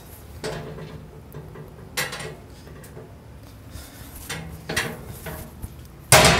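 Sheet-metal wall-mount network rack being pushed and shifted by hand: a few light metal knocks and rattles as the panels settle, then one loud clunk near the end.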